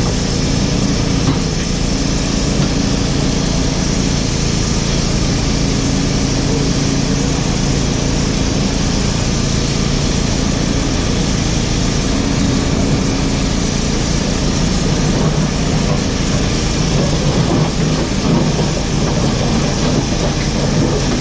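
JCB 4CX backhoe loader's diesel engine running steadily, its pitch shifting a little now and then as the machine works, with a few knocks in the last few seconds.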